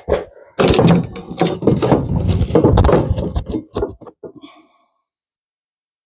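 A busy clatter of knocks, scrapes and rattles lasts about three seconds, then thins to a few single knocks and a faint rustle, and stops about five seconds in.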